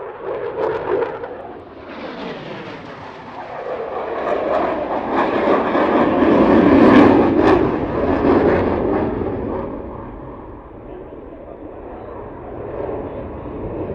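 Eurofighter Typhoon's twin jet engines roaring through a display pass, with a falling pitch early on, swelling to their loudest about seven seconds in and then fading away.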